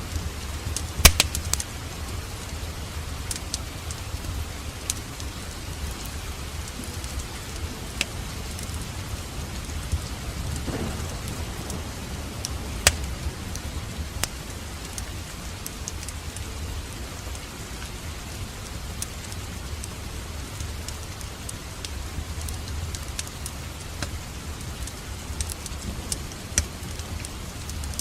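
Wood fire burning in a fireplace: irregular sharp crackles and pops over a low steady rumble of the flames, with the loudest pops about a second in.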